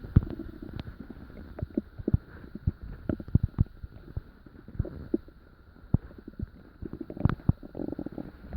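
A person's stomach gurgling while digesting dinner: irregular short pops and bubbly gurgles over a low rumble. The loudest gurgle comes about seven seconds in, after a quieter moment.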